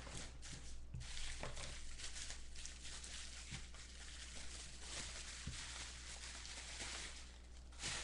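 Rustling and crinkling of trading-card packaging being torn open and cards being handled, with scattered small clicks.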